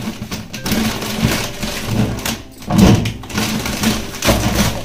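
Plastic food packets crinkling and rustling as they are handled and pulled off a shelf, in irregular bursts.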